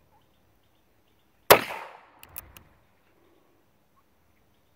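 A single shot from an Excam Buffalo Scout .22 LR single-action revolver about one and a half seconds in, with a short echo. It is followed by three quick clicks as the hammer is thumbed back to cock it for the next shot.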